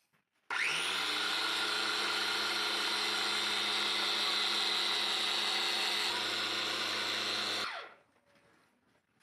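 Small electric grain grinder switched on and running steadily at full speed for about seven seconds as it grinds grain, then switched off, its motor winding down with a falling pitch.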